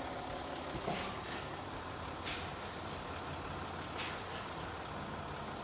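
Land Rover Discovery 4 on a test drive, its engine and road noise running steadily, with a few light ticks about a second, two seconds and four seconds in. No knock comes from the front suspension: the newly fitted hydraulic bushings in the lower control arms have cured it.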